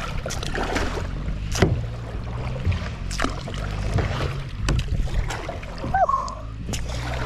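Kayak paddling: paddle strokes splashing and knocking, with a steady low rumble under them.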